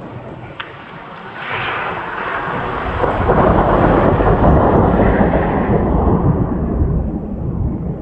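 Rolling thunder from a nearby lightning strike: the rumble builds about a second and a half in, stays loud through the middle for several seconds, and fades away near the end.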